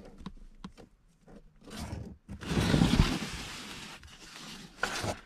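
Handling noise from a comic book being picked up and moved: a few light clicks, then a longer rustle about two seconds in that lasts around two seconds.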